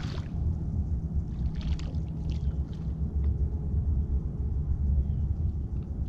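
Steady low rumble of a boat on open water, with a few brief splashing sounds in the first three seconds.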